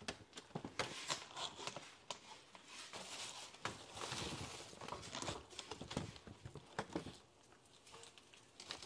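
Garlic sizzling faintly in hot oil in a cast-iron skillet, with scattered sharp clicks and knocks throughout.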